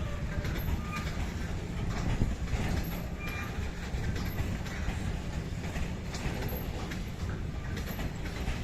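Coaches of an Indian Railways express passenger train running over points as it changes track: a steady rumble and rattle of wheels on rail, with brief wheel squeals about a second and three seconds in.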